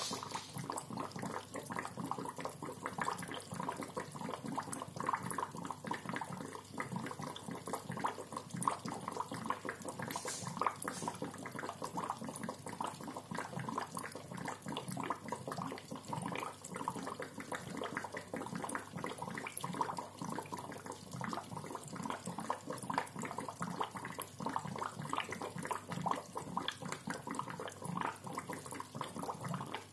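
Aquarium bubbler gurgling in the tank water: a continuous, rapid, irregular bubbling.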